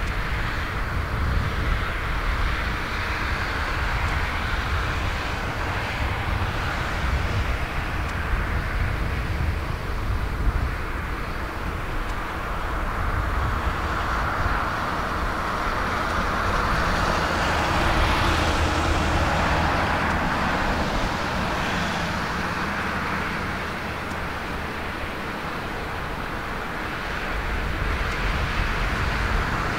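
Boeing 777-200ER jet airliner on landing approach with gear down: a steady rumble and hiss of its engines that swells and eases slightly as it nears.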